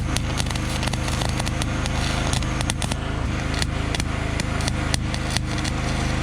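Electric welder laying tack welds along a car body's broken spot-welded seams: irregular sharp crackling over a steady low electrical hum.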